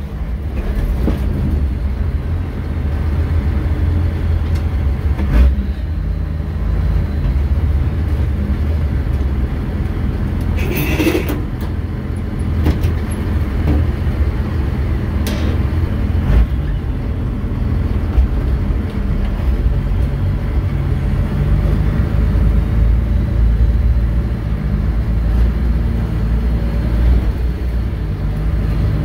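Truck engine running steadily at low speed as the truck crawls over a rocky trail, heard from inside the cab. A few knocks are heard, and a brief sharp noise comes about eleven seconds in.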